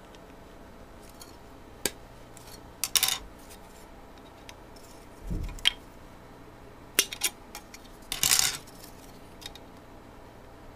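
Side cutters snipping yellow plastic kit parts off their moulded frame: a series of sharp snaps and clicks, some in quick clusters, with a low thump about five seconds in.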